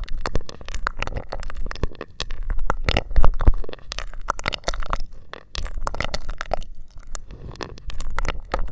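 Close-miked mouth sounds: rapid, irregular wet clicks and smacks of lips and tongue around a straw held between the lips, over a low rumble.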